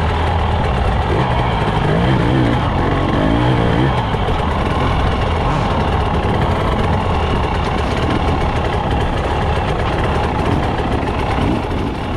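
2021 Husqvarna TE 300i two-stroke dirt bike engine running under load on a rough trail, revving up and down as the rider works the throttle, with rattling and wind noise picked up by the front-fender mount.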